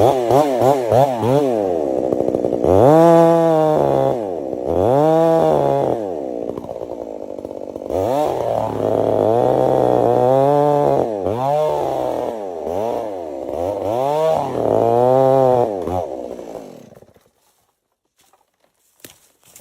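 Two-stroke chainsaw cutting into a large tree trunk, its engine pitch repeatedly rising and falling as the throttle is worked in the cut. Near the end the saw winds down and stops.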